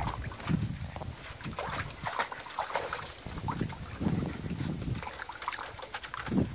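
Water sloshing and splashing in a plastic kiddie pool as a French bulldog moves and paddles in it, in uneven bursts.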